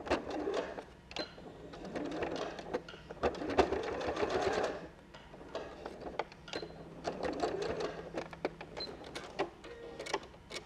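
Electric domestic sewing machine stitching a short line of tacking through a folded, padded fabric bow, in three stop-start runs: a brief one at the start, a longer one of about three seconds, then a shorter one near the end, with the motor's steady hum under the clatter of the needle.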